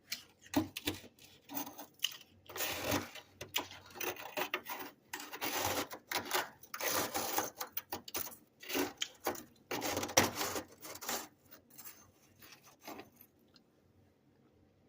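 Freezer frost being scraped: a quick run of rasping, crunchy scrapes with short pauses, stopping about two seconds before the end.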